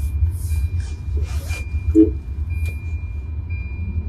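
Cabin noise of a Tata Nexon's 1.2-litre turbo-petrol engine and tyres on the move: a steady low rumble under a thin, steady high whine, with a few short hissy swishes and a brief low blip about two seconds in.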